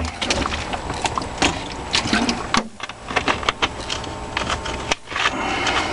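Irregular clicks, taps and rustling of hands handling eggs and gear inside a refrigerator egg incubator while the eggs are being turned, broken twice by short pauses.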